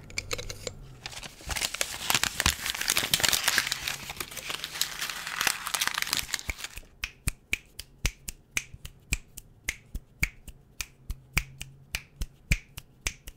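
Hands rubbing together right at the microphone, a dense crackling rustle, then finger snapping close to the mic at about three snaps a second.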